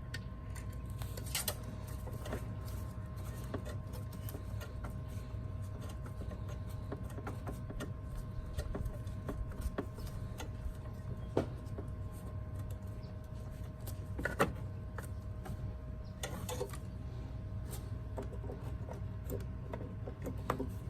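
Irregular clicks, taps and light knocks of hand tools and metal parts being handled during car repair work, a few of them sharper, over a steady low hum with two faint steady tones.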